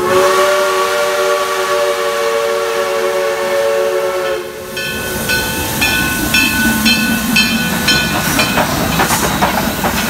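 Steam locomotive whistle blowing one long multi-note chord for about four and a half seconds, then a bell ringing about twice a second as the locomotive passes close, with the rumble and clank of its running gear.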